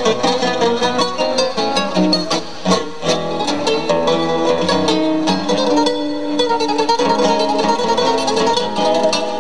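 A trio of mandolin-type plucked string instruments playing a tango, many quick picked notes over held chords.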